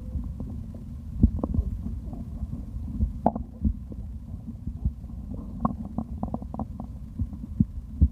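Stomach gurgling after drinking: a steady low rumble with many short gurgling pops, a few about a second in, one sharper pop a little past three seconds, and a quick run of them from about five and a half to seven seconds.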